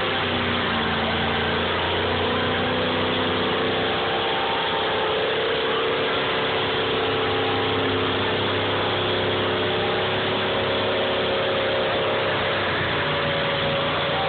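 Chevrolet Nova's engine held at steady high revs during a burnout, its rear tyres spinning and squealing on the pavement. The engine pitch stays nearly constant throughout.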